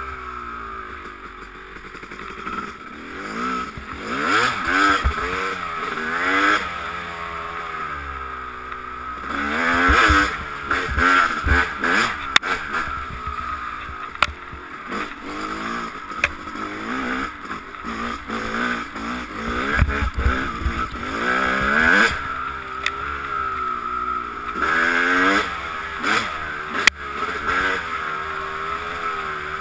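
Dirt bike engine revving up and down again and again as it is ridden hard, pitch climbing and dropping with throttle and gear changes. Wind rumble on the helmet camera, with a few sharp knocks from bumps.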